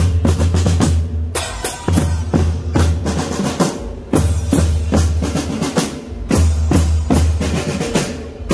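Drum band playing: snare and bass drums beating a fast, dense rhythm in phrases broken by brief gaps every two seconds or so.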